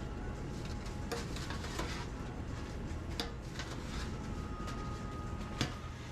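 Restaurant kitchen background during service: a steady low hum with scattered clicks and knocks of handling, the sharpest one near the end. A steady high tone sounds for about two seconds in the second half.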